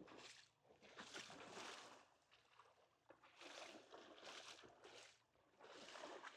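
Faint small waves lapping on a sand beach, swelling and falling back about every two seconds.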